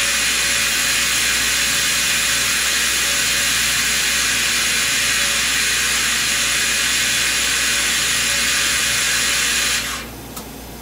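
Star SR-32J CNC Swiss lathe's power-driven tool spindles running at 5,000 rpm: a steady, high whir with hiss, which drops away sharply near the end as the spindle stops.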